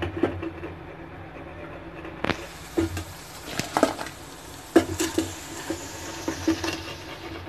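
Cauliflower bajji deep-frying in hot oil in a steel kadai, sizzling, with the sizzle getting louder about two seconds in. A perforated steel ladle knocks and scrapes against the pan several times as the fritters are stirred and lifted out.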